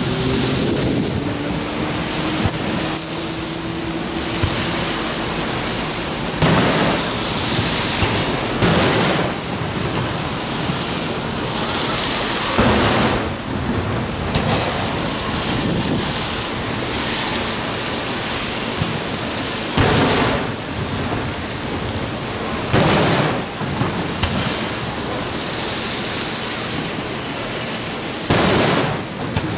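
Aerial firework shells bursting overhead: about eight booming bangs at uneven gaps of a few seconds, each trailing off in a rolling echo, over a steady background rush.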